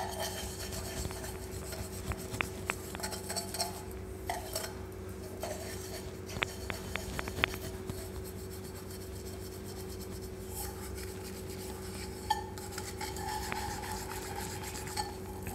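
Hands rubbing a silver tumbler with a paste of Pitambari powder and lemon juice to scrub off the tarnish. A few light metal clinks come in the middle.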